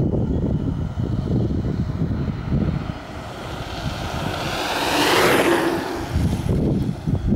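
7000-watt electric bike passing close by while climbing: a rising rush with a motor whine that peaks about five seconds in and drops in pitch as it goes by. Wind buffets the microphone before and after.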